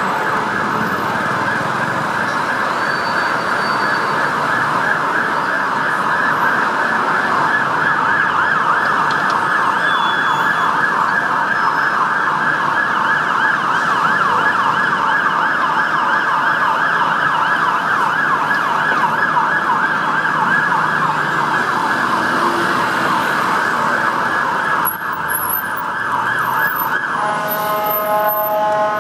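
Fire engine siren on a Mercedes Econic turntable ladder sounding a rapid yelp as the appliance responds through traffic. About two seconds before the end it switches to a steady blaring horn tone, the 'bullhorn'.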